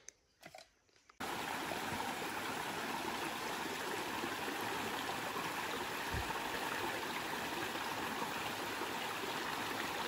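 Small rocky forest stream trickling and splashing over stones, a steady rush of water that starts suddenly about a second in.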